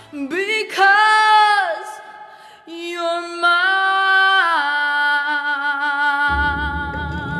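A woman singing alone without accompaniment: a rising phrase, then long held notes that step down in pitch. Near the end the backing track comes back in underneath her.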